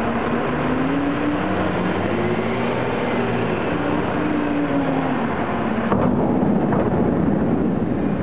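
Diesel engine of a terminal tractor hauling a loaded semi-trailer, its pitch rising and falling as it is throttled while manoeuvring. About six seconds in there is a sharp knock, and the sound becomes louder and duller.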